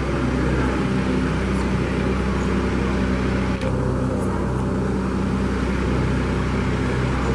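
John Deere utility tractor's diesel engine running steadily at low speed while the tractor moves slowly, towing a small utility trailer.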